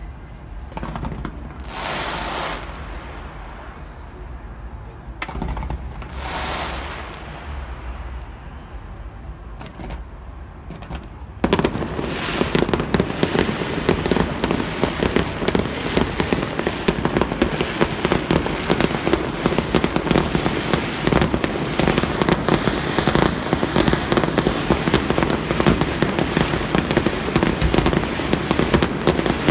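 Fireworks display: two separate bursts that each fade over a second or so, then about eleven seconds in a sudden, dense barrage of crackling bangs that keeps going without a break.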